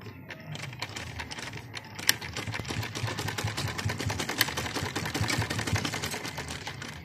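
Black domestic straight-stitch sewing machine running as it stitches fabric, its needle mechanism ticking rapidly and evenly. It picks up speed and loudness over the first second or so, then runs on steadily.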